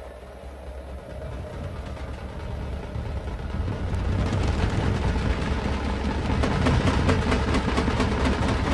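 Wind blowing across the microphone: a low rumble with a rushing noise that grows steadily louder.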